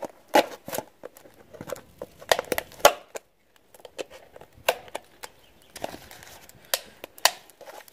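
Thin plastic water bottle crackling and crinkling as scissors are jabbed through it and cut holes in its bottom: an irregular run of sharp snaps and crinkles, with a short pause about three and a half seconds in.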